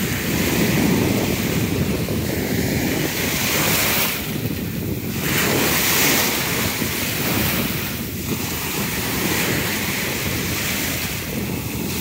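Choppy ocean surf breaking and washing in the shallows close by, with wind rushing over the microphone. The wash swells and eases, dropping back briefly about four seconds in and again near eight seconds.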